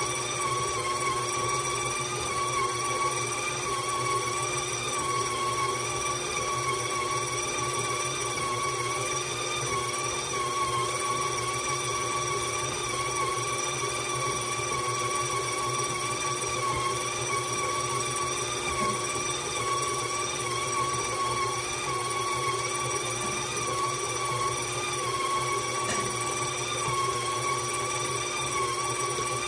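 KitchenAid stand mixer running steadily as its dough hook kneads bread dough in the steel bowl, the motor and gearing giving a constant whine that wavers slightly.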